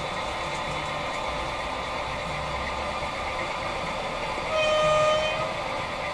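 Sound decoder of a Brawa HO-scale model diesel locomotive playing a steady diesel engine running sound, with one horn blast lasting about a second, starting about four and a half seconds in.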